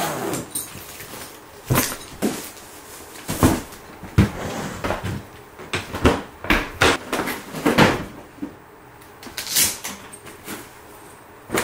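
Irregular knocks, clunks and rustles of things being handled, like cupboard doors and objects being moved and set down, about a dozen sudden sounds at uneven spacing.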